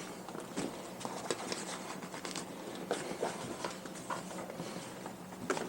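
Irregular light rustling, creaking and small taps of seat-cover material being pulled and handled over a motorcycle seat, with a faint steady hum underneath.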